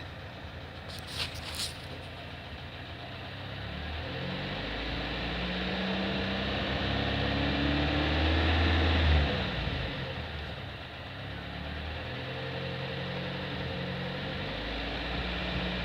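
Car engine idling with the alternator humming under electrical load. The hum swells over the first several seconds, drops away abruptly about nine seconds in, then builds again.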